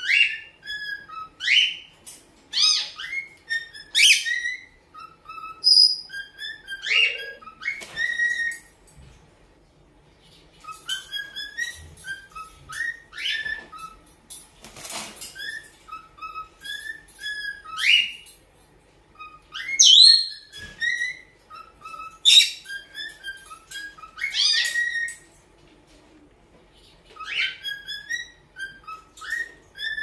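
Cockatiel whistling its song: phrases of short, rising whistled notes, with brief pauses between phrases.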